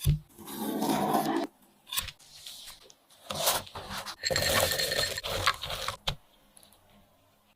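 Kitchen utensils being handled during cake preparation: a sharp knock, then several bursts of scraping and rustling with a few clicks in between, stopping about six seconds in.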